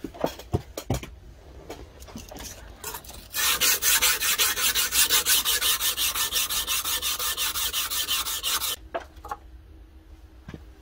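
Rapid back-and-forth hand scrubbing on a flat steel axe head, about seven strokes a second. It starts a few seconds in and stops about two seconds before the end, with light handling clicks before it.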